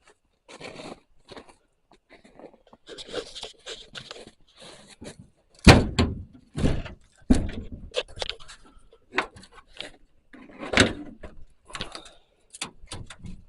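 Irregular knocks, clunks and scrapes. The heaviest knock comes about six seconds in, and another strong one near eleven seconds.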